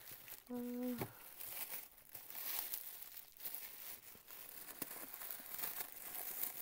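A clear plastic bag and plastic-wrapped fabric precut packs crinkling and rustling as they are handled, in irregular bursts. A short hummed 'mm' from a voice sounds about half a second in.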